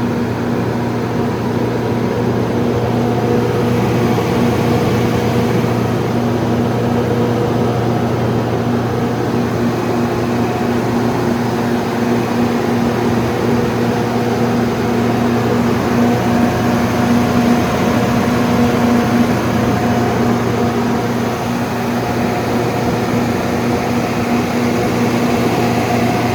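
A 150 kW Cummins/Onan natural gas generator set running steadily, its engine holding a constant speed with an even, unchanging hum.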